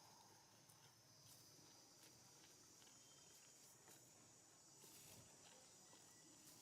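Near silence: faint outdoor ambience with a steady high hiss and a few soft clicks.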